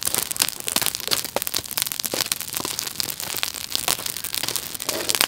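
Burning lump charcoal crackling and popping, with dense quick sharp pops throughout as sparks fly from the embers.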